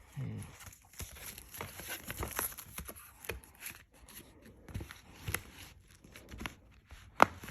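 Plastic DVD cases being handled: rustling and crinkling with scattered small clicks, and a sharp plastic click near the end.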